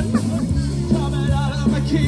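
Upbeat band music with singing over a steady bass line.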